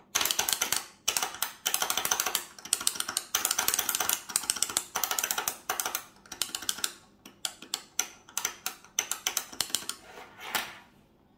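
ITW magnetic keyboard switches on single-switch testers, one damped and one undamped, pressed in fast rattling bursts of sharp clacks with short pauses between. The strokes thin out near the end.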